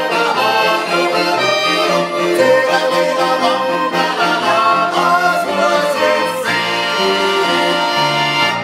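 Swiss Ländler folk music played live on a Schwyzerörgeli (small Swiss diatonic accordion) and a chromatic button accordion, with a double bass carrying a steady bass line underneath.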